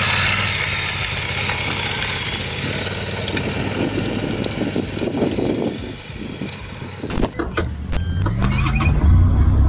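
Big adventure motorcycles' engines running as the bikes move off on dirt. About seven seconds in, the sound changes abruptly to one motorcycle's engine heard up close, revving with a rising note and then running with a strong low hum.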